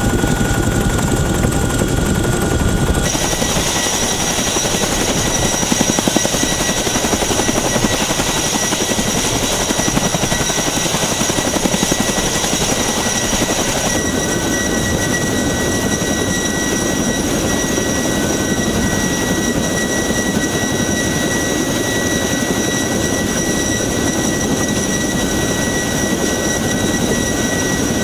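Helicopter noise: turbine and rotor sound with several steady high whines. The sound shifts about three seconds in to a CH-47 Chinook running on the ground with its rear ramp down.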